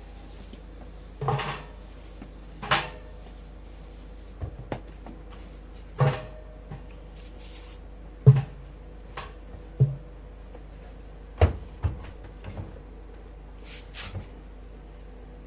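Knocks and clacks from handling a front-loading washing machine: about ten separate short knocks spaced a second or two apart.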